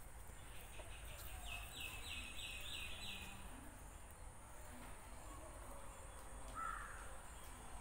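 Birds calling over steady background noise: a quick run of about six short high notes in the first half, then one lower single call near the end.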